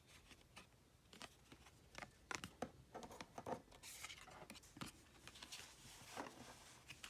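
Faint handling of Pokemon trading cards: soft scrapes and scattered light ticks as cards are slid and flipped.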